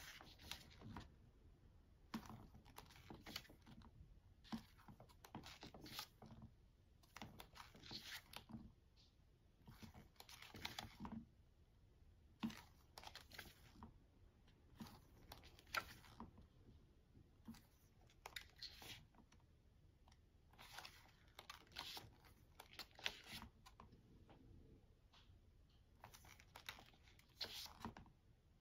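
Pages of a K-pop album's photo book being turned by hand: soft paper swishes and rustles about every second or two.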